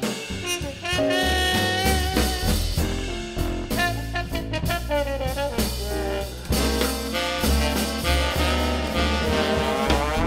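Jazz band playing an up-tempo arrangement: a brass section with trombone and trumpet carries the melody over a drum kit and a pulsing bass line.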